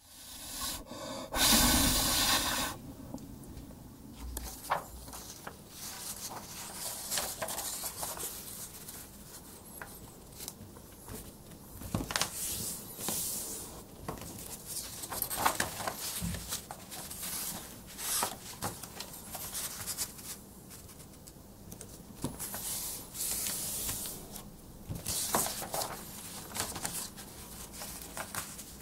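A sheet of A4 paper being handled and folded by hand on a tabletop: irregular rustles, slides and crease strokes. There is a louder rush of noise about a second and a half in.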